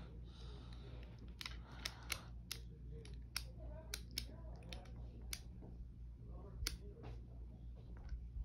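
Irregular sharp clicks and light taps of small objects being handled, over a low steady hum.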